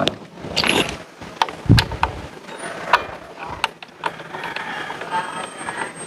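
Sharp metal clinks and knocks of hand tools against the scooter's rear brake caliper and swing arm, then a ratchet wrench working a bolt with light, rapid clicking near the end.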